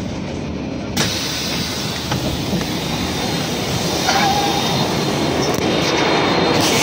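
Bus engine running while passengers get off: about a second in, the noise suddenly grows louder and brighter as the door is open, with a few knocks and bumps as a bag is carried out through it.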